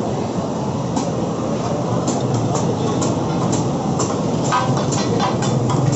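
Chicken cooking on a tawa griddle under a loud steady rumble and frying noise, with irregular sharp clinks of metal spatulas striking the pan.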